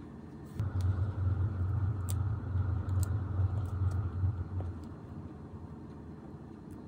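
A low rumble starts suddenly about half a second in and fades away near five seconds, with a few faint ticks of paper being handled over it.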